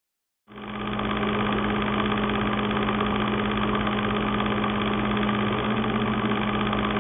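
A steady droning hum that starts abruptly about half a second in and then holds at an even level, with one strong constant low tone over a fainter rumble.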